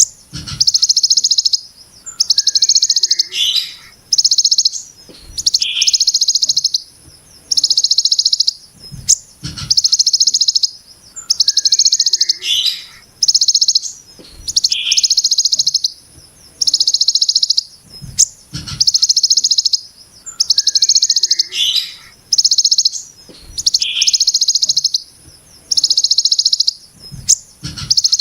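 Kolibri Ninja (konin) singing a fast, harsh, buzzy 'brem' trill of the kind copied from the ciblek gunung, in dense high-pitched bursts about a second long, repeated every one and a half to two seconds. Short, sharper chirps fall between the bursts, and there are a few faint low knocks.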